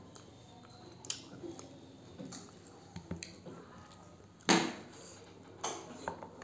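Close-up eating sounds of a person chewing spicy pork: small wet mouth clicks and smacks, with fingers picking at meat on the plate. A louder sharp smack comes about four and a half seconds in.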